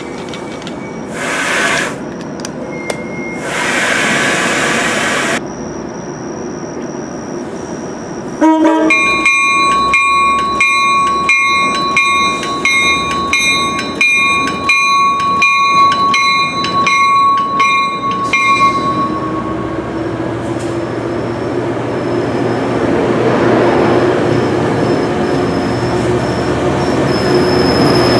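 Railway sounds: two short bursts of hiss, then a bell ringing steadily at about two strikes a second for roughly ten seconds. It stops, and a diesel locomotive engine rises in pitch and grows louder as the commuter train moves, with some wheel squeal.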